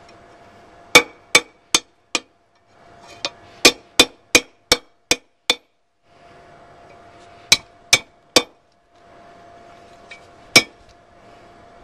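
Hand hammer striking 1/2 inch rebar on an anvil: about fifteen sharp metal-on-metal blows in quick runs of four, seven and three, then one more near the end, as the bar is flattened for the tongs' hinge. A faint steady hum sits between the runs.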